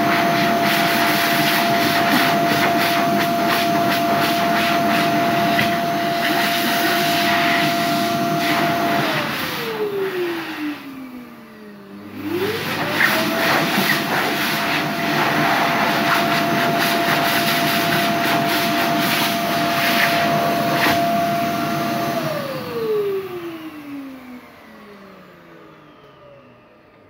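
Airstream Vitesse hand dryer running: a steady motor whine over the rush of air. About nine seconds in it cuts out and the motor spins down with a falling whine, then it starts up again about twelve seconds in and runs steadily, before spinning down once more to a stop near the end.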